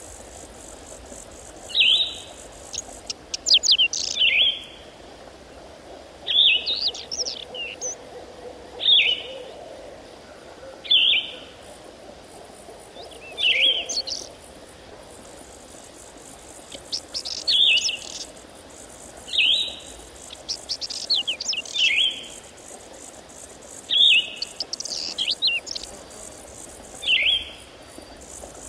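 A songbird singing the same short phrase over and over, about one every two seconds: a few quick high notes ending in a falling note.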